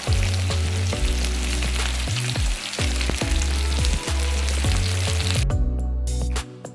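Chicken pieces frying in hot oil in a saucepan: a steady sizzle that cuts off about five and a half seconds in. Background music with a steady bass plays underneath.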